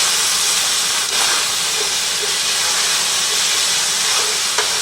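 Browned ground beef and soy-vinegar sauce sizzling steadily in a hot frying pan as it is stirred, with a light click about a second in and another near the end.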